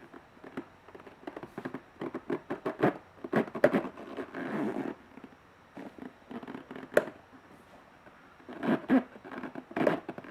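Stock rigid-mount motorcycle brake disc being rocked by hand, clattering in quick runs of clicks as it shifts on its mounting pins. This is play that a rigid-type disc should not have.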